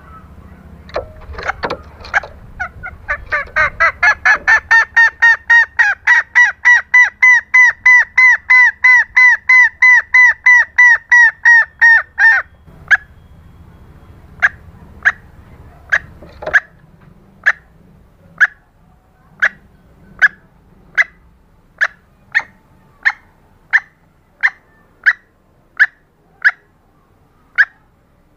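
Red junglefowl hen calling: a fast run of clucks, about three a second, that stops abruptly about twelve seconds in, then slower single clucks about one every two-thirds of a second. It is a female junglefowl call played as a lure for wild junglefowl.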